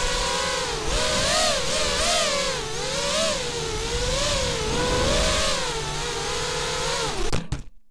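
ZMR-X210 FPV racing quadcopter's four RCX H2205 2350kv brushless motors on DAL T5045 three-blade props, whining as heard from the onboard camera. The pitch swoops up and down with the throttle as it dives and turns, over rushing air noise. The sound cuts off abruptly near the end.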